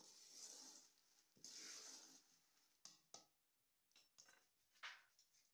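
Faint scraping and rattling of in-shell peanuts being stirred with a metal spatula in a large metal karahi during dry roasting: two spells of about a second each, then a few scattered clicks of shells.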